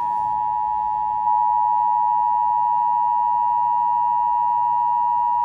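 Emergency Alert System attention signal: a loud, steady two-tone alarm held without a break, getting slightly louder about a second in. It marks the start of an emergency alert, here a severe thunderstorm warning.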